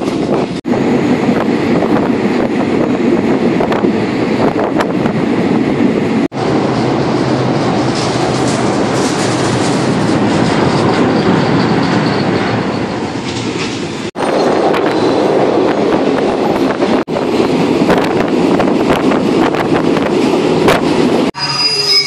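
Passenger train running on the rails, heard from on board by an open window: a steady loud rumble and rattle of the wheels on the track, with scattered clicks. The sound cuts off suddenly for a moment a few times.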